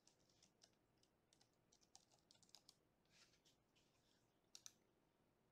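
Faint computer keyboard typing: a patter of quick key clicks, with two sharper clicks about four and a half seconds in.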